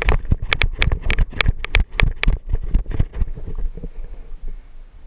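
Rapid paintball pistol shots, about five or six sharp pops a second, stopping a little over three seconds in, with wind and rustle on the microphone underneath.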